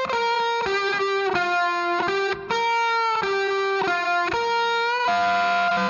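Background music: an electric guitar playing a lead melody of single held notes, about two or three a second, with an effects-coloured tone.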